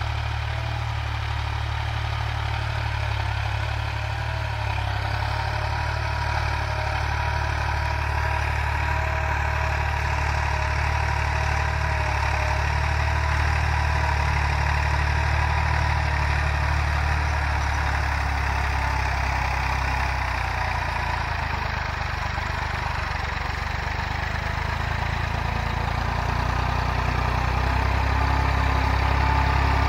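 Massey Ferguson 260 tractor's diesel engine running steadily under load while dragging a suhaga plank leveller, its engine freshly fitted with new piston rings and cylinder sleeves. It grows a little louder near the end as the tractor comes closer.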